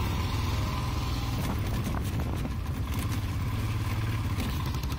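Motorcycle engine running steadily as the bike rides a rough gravel track, heard from on board the bike.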